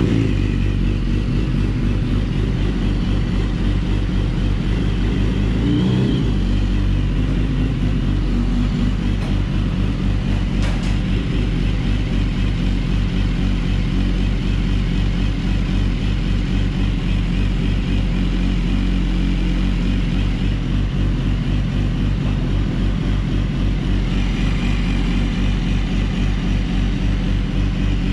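2016 BMW S1000RR's inline-four engine idling steadily, a freshly installed replacement engine warming up toward operating temperature.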